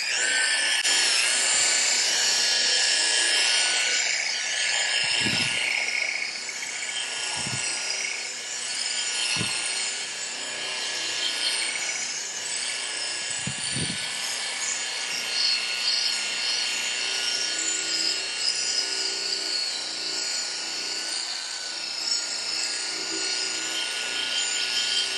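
Rotary polisher with a wool pad, set between 1,800 and 2,200 rpm, running steadily as it works polishing compound over car paint: an even motor whine with the rub of the pad, and a few low thumps in the first half.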